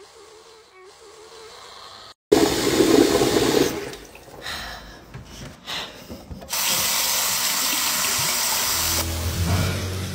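Toilet flushing: a steady rush of water that starts suddenly about six and a half seconds in, with a low hum joining near the end. Before it, water runs at a bathroom sink.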